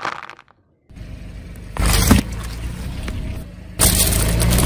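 Car tyre rolling over plastic felt-tip markers, cracking and crushing them, over the steady low hum of the car's engine; two loud crunches, about two seconds in and again near the end. At the very start the last crackle of dry pasta crushed under the tyre fades out.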